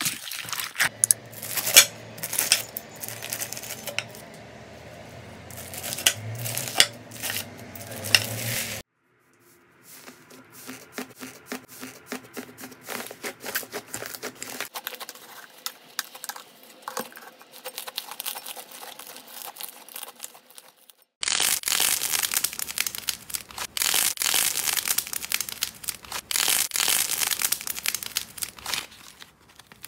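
Hands kneading and squeezing slime, a dense run of small crackles, clicks and pops. First foam-bead slime is worked in a bowl, then after a cut a quieter stretch of soft slime being pressed, and from about two-thirds in a louder, denser crackling as a fluffy slime is squeezed.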